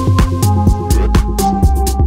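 Electronic house music track playing: a full beat of kick drum and bass with hi-hats and a steady synth line, the beat having just dropped in.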